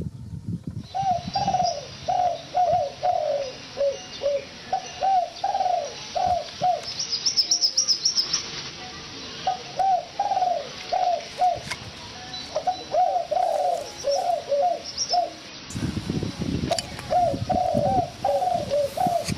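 Birds calling: runs of short, arched calls repeated several times a second, with a short burst of high chirps about a third of the way through. Low thuds come in near the end.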